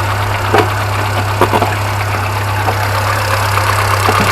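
Car engine idling steadily up close, with a light ticking that is the fuel injectors; no chain rattle is heard.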